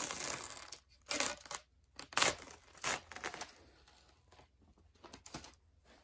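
Teflon-coated peel ply being peeled off a freshly cured fibreglass-and-epoxy fin layup: several short ripping pulls over the first three and a half seconds, then only faint handling noises.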